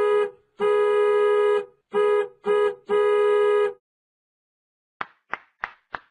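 A horn sounding five blasts in a short–long–short–short–long pattern. About five seconds in, a quick run of sharp knocks follows at roughly three a second.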